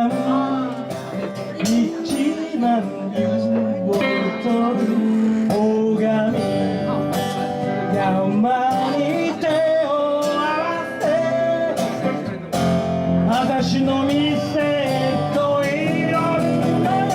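Live band music: strummed acoustic guitar under a bending, wavering lead melody.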